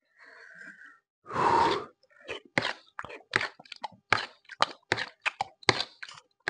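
A person eating soft gelatin by the handful: wet chewing and mouth smacks, short sharp clicks about three a second. About a second and a half in comes one loud half-second rush of noise.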